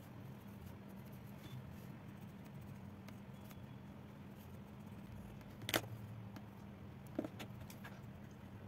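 Pencil drawing on paper: faint strokes over a steady low hum, with a sharp tap a little before six seconds in and a softer one over a second later.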